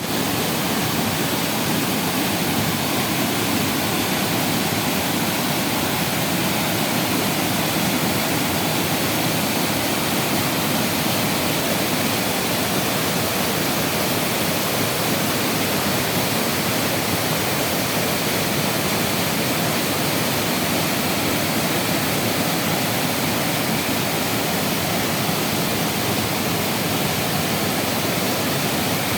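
Waterfall: water pouring and crashing in a steady, unbroken rush.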